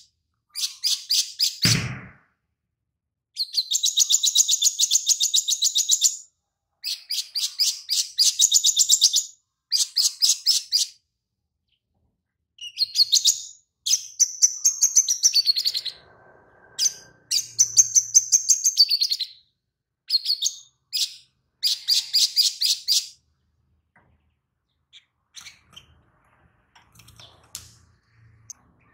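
Caged male olive-backed sunbird singing in phrases of rapid, high, trilled chirps a second or three long with short gaps, its song filled with imitations of lovebird calls. There is one low thump about two seconds in, and the song turns fainter and sparser near the end.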